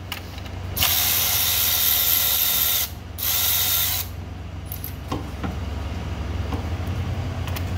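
Cordless electric ratchet spinning a 10 mm socket to undo a fastener, with a thin steady whine: one run of about two seconds, then a short second burst after a brief pause. A few light clicks of tool handling follow.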